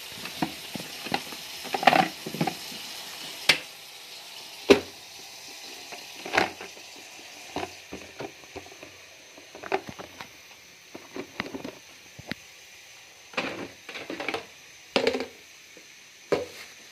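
Plastic food-storage containers and lids being handled: irregular clicks, taps and knocks of plastic on plastic and on a stone counter, over a faint steady hiss.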